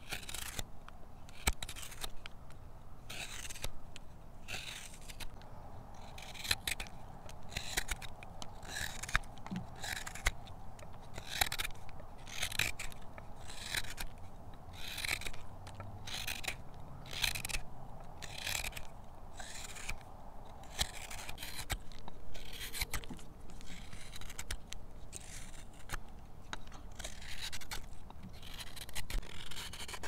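Hook knife cutting the hollow of a wooden spoon bowl, paring off shavings in a steady series of short, crisp scraping strokes, roughly one or two a second.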